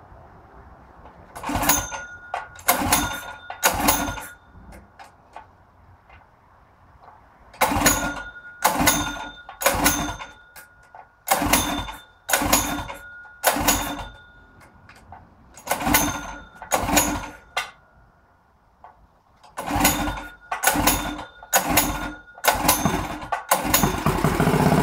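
Modified Honda GX160 single-cylinder engine being cranked over in repeated short bursts, about one a second, in groups of three to five with pauses between, without keeping running. Near the end it catches and keeps running.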